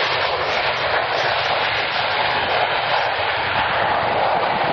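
Steady jet noise from a Panavia Tornado IDS's two RB199 turbofans as it rolls out after landing with its thrust reversers deployed.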